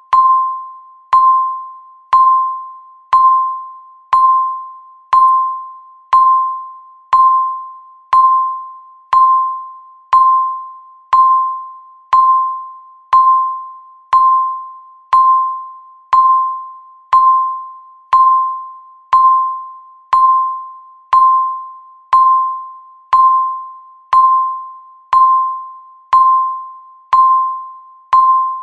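Countdown timer ticking: a short, ringing electronic tick once a second, each fading away before the next.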